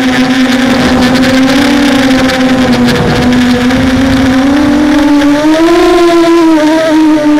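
Hexacopter's electric motors and propellers whining, their pitch shifting with the throttle as the craft fights gusty wind, rising about five seconds in. Wind rumbles on the microphone about three seconds in.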